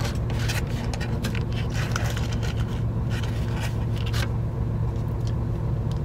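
Truck engine idling with a steady low hum, over which a paper cup-noodle lid and plastic seasoning packets crinkle and rustle in short bursts as they are handled.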